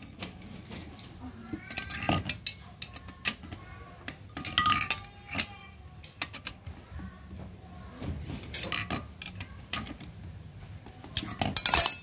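Metal clinking and rattling of a socket wrench on the bolts of a washing machine motor's pressed-steel housing as the bolts are tightened down, with a louder clatter near the end.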